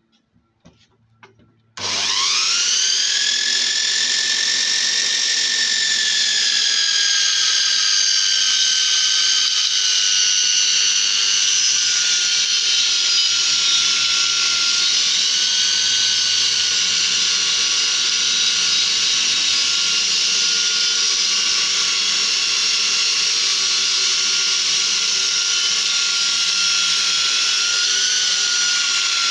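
Homemade bandsaw built from a DeWalt circular saw, its universal motor run at a reduced 140 V through a transformer. It is switched on about two seconds in, after a few light clicks, and runs with a steady high whine while the band blade cuts through a thick spruce rafter end. The pitch settles slightly lower over the first several seconds of the cut.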